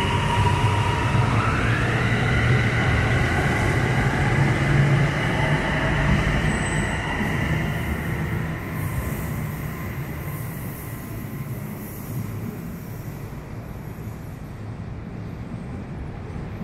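Airport Rail Link electric train pulling out of the station: a high electric whine that glides up in pitch about a second and a half in and holds, over the rumble of the wheels. Both fade after about eight seconds as the train moves away.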